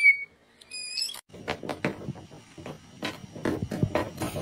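A cat's very high-pitched, squeaky meow, twice within about a second, the second rising in pitch. Then irregular rustling with soft taps and scratches.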